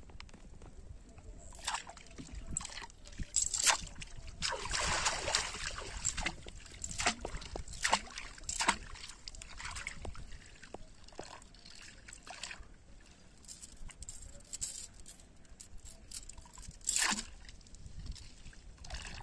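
Water splashing and trickling as a hooked fishing line on a metal chain is worked up and down in the water beside a wooden boat. A longer run of splashing comes about five seconds in, and short sharp splashes or knocks are scattered through.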